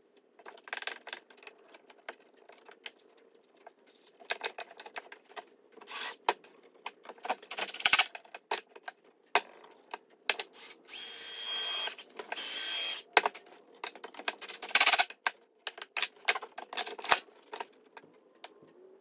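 Wooden blocks and boards clattering and knocking as they are handled on a workbench, with two short runs of a cordless drill near the middle, about a second and half a second long, with a steady whine.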